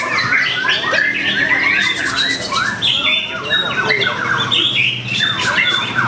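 White-rumped shama (murai batu) singing loud, fast and varied phrases with harsh chattering notes and quick whistled slides, overlapped by other caged songbirds singing at once.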